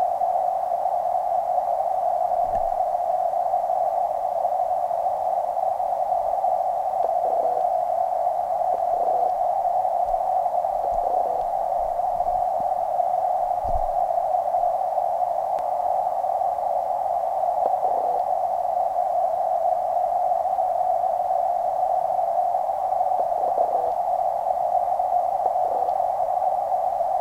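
Steady, even hiss of creek water heard underwater through a waterproof camera housing, with a few faint soft knocks now and then.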